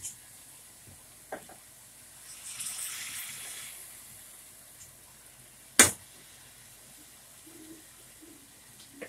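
Thick salsa poured from a blender jar into a stainless steel skillet of crumbled cheese, splashing and pouring for about a second and a half, followed a couple of seconds later by a single sharp knock, the loudest sound.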